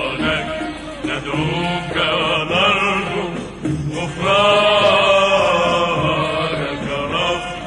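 Arabic devotional song (nasheed): voices chanting a melodic line without clear words over a steady low drone, swelling into a long held note about halfway through.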